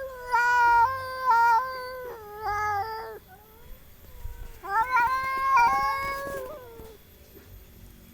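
Cats caterwauling in a territorial standoff: long, wavering yowls, one running through the first three seconds and another from about four and a half to seven seconds in.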